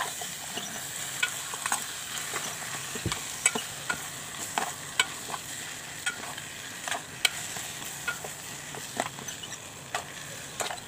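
A spoon stirring raw chicken pieces and vegetables in a metal pot, with irregular clicks and scrapes against the pot over a steady sizzle from the sauté underneath.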